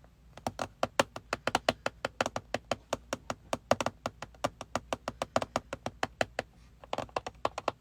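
Fingernails tapping rapidly and evenly, about seven taps a second, stopping about six and a half seconds in.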